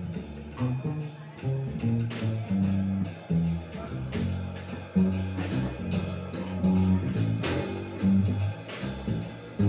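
Small jazz combo playing live: a plucked upright double bass carries a prominent line of notes, with drum-kit cymbal and drum strokes and a Nord Electro keyboard comping beneath it.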